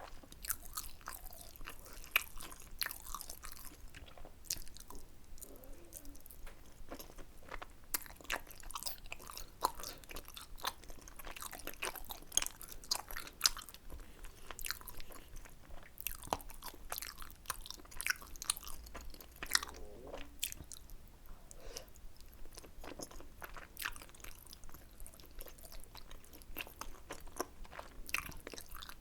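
Close-miked chewing and biting while eating tteokbokki: many short, irregular mouth clicks and smacks, with no pause longer than a moment.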